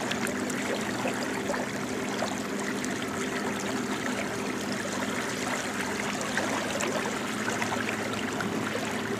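Steady rushing of water around a small boat on open water, with a faint low hum underneath.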